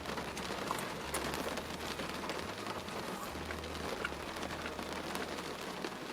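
Steady patter of rain, with faint scattered clicks of someone chewing a chicken nugget.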